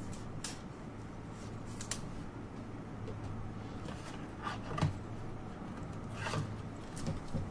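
Trading cards being handled: a few short, soft swishes and clicks of cards sliding against one another, over a steady low hum.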